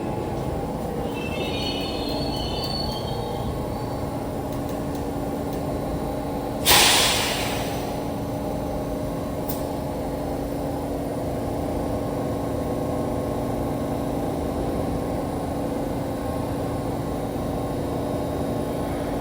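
R46 subway train at a terminal station, its wheels squealing faintly for the first few seconds. About seven seconds in comes a sudden loud hiss of air, about a second long, from the brakes, then a steady hum from the standing train.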